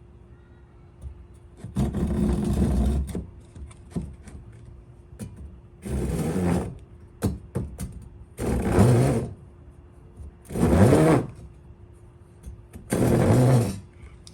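Power saw cutting small pieces of wood in five short runs of about a second each, the motor's pitch shifting as it works through the cut.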